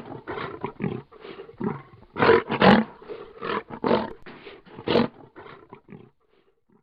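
Lion growling in a run of short repeated pulses, about two to three a second, trailing off and stopping about six seconds in.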